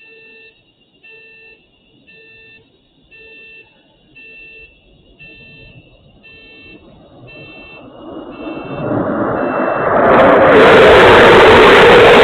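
A car alarm beeps steadily about once a second. Then a roar swells over a few seconds and becomes very loud and distorted for the last couple of seconds, drowning out the alarm.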